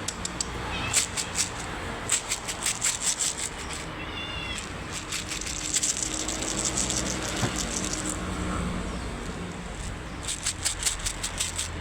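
A cat meowing, short calls near the start and again about four seconds in, between spells of quick, rapid rattling.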